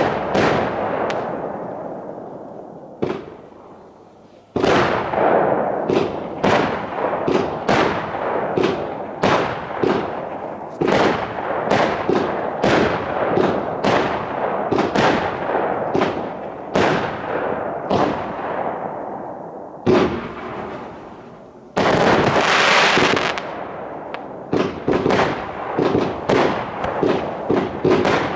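Startrade Feuerzauber XL compound firework cake firing, with a rapid run of bangs from bursting shots. The run thins out briefly about three seconds in and again near twenty seconds. A couple of seconds of dense hissing follow the second lull before the bangs resume.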